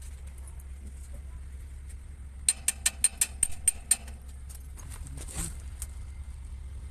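A quick, uneven run of about eight sharp clicks and taps from hand tools, over a steady low hum, with a brief scraping rustle a little later.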